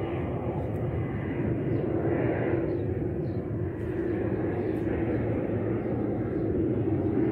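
A steady engine-like drone with a low rumble underneath, unchanging throughout.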